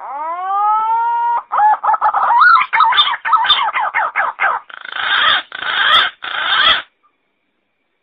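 Green pigeon singing: a rising fluted whistle held for about a second, then a run of wavering, warbling notes, ending in three rougher, harsher phrases before it stops about seven seconds in.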